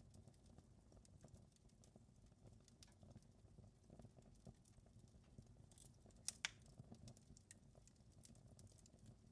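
Wood fire crackling faintly, with scattered small pops and one sharper, louder snap about six seconds in, over a low steady rumble.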